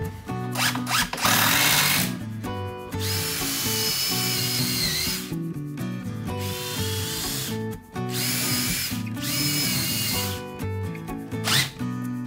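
Cordless driver running screws into a pine stair riser in several runs of one to two seconds each, with a high whine. Background music plays underneath.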